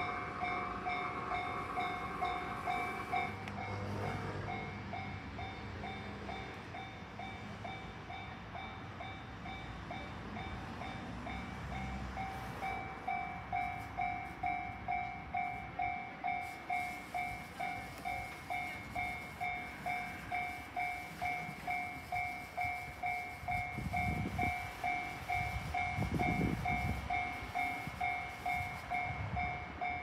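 Japanese level-crossing warning bell ringing steadily at about two strokes a second while the crossing is closed for a train. A train's low rumble comes in over the bell in the last several seconds as it approaches.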